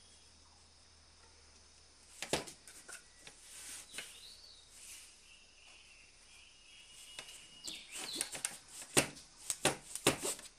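Wooden hand loom knocking and clattering as the weaver works the beater and rods: a few knocks about two seconds in, then a quick run of sharper knocks near the end. Birds chirp briefly now and then.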